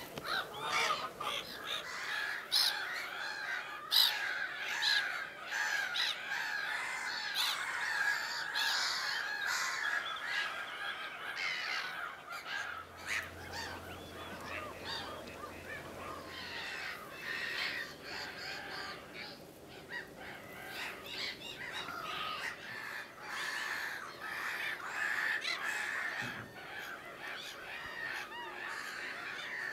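Wild wetland birds calling: a dense, continuous mix of many short overlapping calls and chatter.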